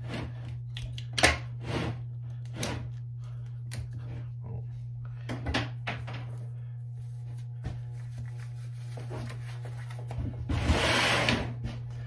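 Hand-tool handling on a work table. A ring-cut tool is worked around a fiber-optic drop cable and set down, giving several sharp clicks and knocks in the first three seconds and a couple more around the middle. Near the end comes about a second of scuffing as a knit work glove is pulled on, over a steady low hum.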